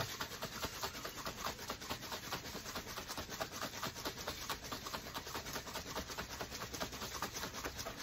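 Plastic shaker bottle holding water and powdered energy drink being shaken up and down, an even run of sloshing strokes several times a second as the powder is mixed in.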